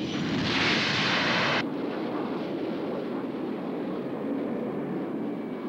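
Animated sound effect of a flying craft's engine: a steady low rumble, with a louder rushing hiss that starts about half a second in and cuts off sharply a second later.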